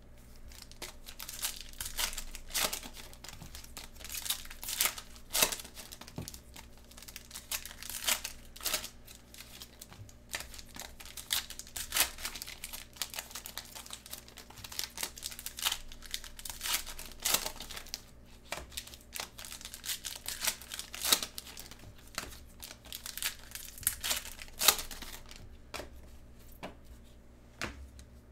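Trading card packaging crinkling and tearing as football card boxes and packs are opened by hand: an irregular run of crackles with sharp snaps now and then.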